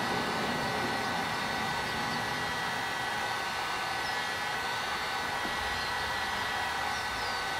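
Electric heat gun running steadily, its fan blowing hot air with a steady hiss and a faint high whine, heating a plastic car bumper to soften it so a dent can be popped out.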